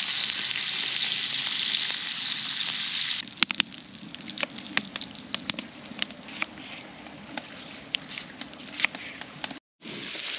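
Food frying in a pan over a campfire, a loud steady sizzle. About three seconds in it drops suddenly to a quieter sizzle with many sharp pops and crackles, and near the end the loud sizzle returns after a brief break.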